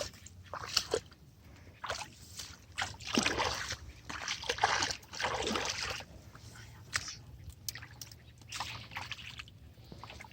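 Water splashing and sloshing in a run of irregular bursts, loudest from about three to six seconds in.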